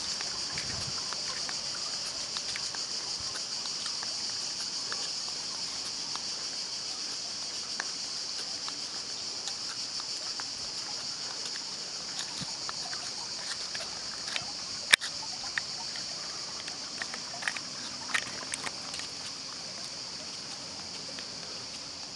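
Cicadas droning as a steady high-pitched chorus, with a few light clicks and taps and one sharp click about two-thirds of the way through.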